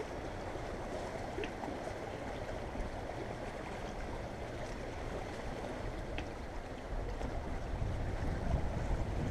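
Wind rushing and buffeting the microphone over choppy water, a steady noise that turns gustier and louder about seven seconds in.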